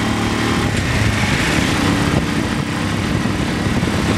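Cruiser motorcycle engine running steadily while riding, under a broad rush of wind noise.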